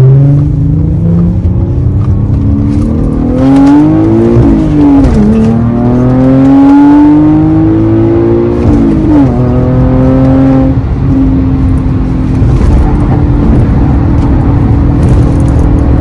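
Audi A5 engine heard from inside the cabin, accelerating through the gears of its manual gearbox. The revs climb, drop at an upshift about five seconds in, climb again and drop at a second upshift about nine seconds in, then hold steady.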